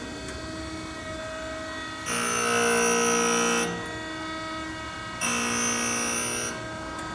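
Harig 618 hydraulic surface grinder running, its wheel grinding a metal block on each pass of the reciprocating table: a loud, ringing grinding sound twice, about two and five seconds in, each lasting about a second and a half, over the steady hum of the machine.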